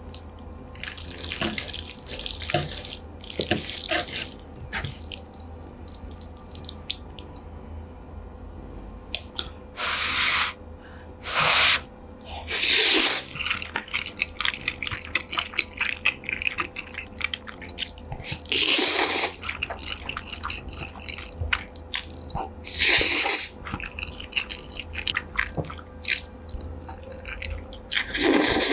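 Close-miked eating sounds: wet chewing and mouth clicks throughout, with about six louder bursts, each half a second to a second long, from bites of food.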